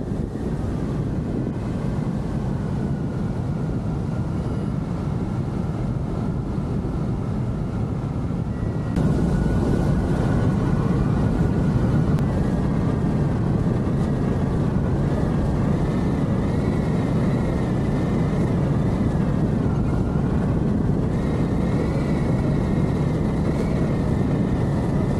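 Airflow rushing over the microphone of a hang glider in fast flight: a heavy, steady rush with a thin, wavering whistle above it. The rush gets louder about nine seconds in.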